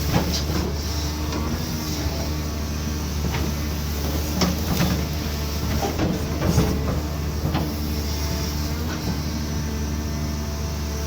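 Cat 320D2 excavator's diesel engine running steadily, with scattered sharp knocks and cracks over it, several in the middle of the stretch.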